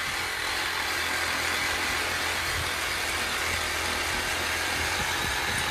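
Cordless reciprocating saw running steadily, its blade cutting through the tail section of a large bluefin tuna, a constant motor hum.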